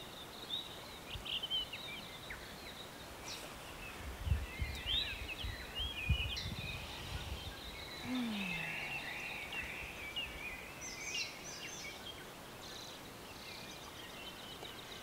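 Small birds chirping and calling in quick, repeated high phrases, with a few low thumps about four to six seconds in.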